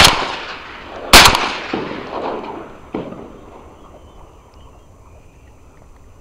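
Two shotgun shots at ducks about a second apart, each followed by a long echo dying away, then a fainter bang about three seconds in.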